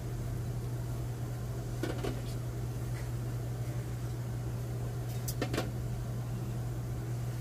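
A steady low hum, with a few light clicks and knocks as small plastic puto molds are handled: one about two seconds in and a pair near five and a half seconds.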